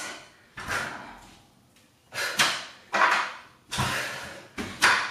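A pair of 25 lb adjustable dumbbells knocking and clanking against a floor mat as they are pressed into and rowed during a push-up-and-row man maker. About half a dozen sharp knocks come at uneven intervals, each trailing off over half a second or so.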